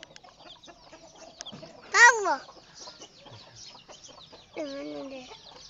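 A chicken calls twice: a loud call falling in pitch about two seconds in, and a shorter wavering call near the end, over faint clicking and rustling.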